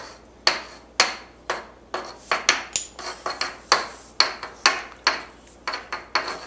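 Thick chalk drawn across a chalkboard in quick, repeated strokes, about two a second, each starting sharply as the chalk hits the board and trailing off in a scrape.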